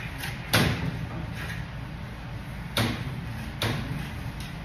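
Three sharp knocks from tools and metal parts being worked at the lower grille frame of a Kenworth truck hood: one about half a second in, then two close together near the end, over a steady low shop hum.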